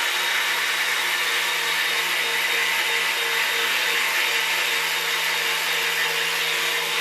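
Steady whir of a machine's electric motor and fan running without change.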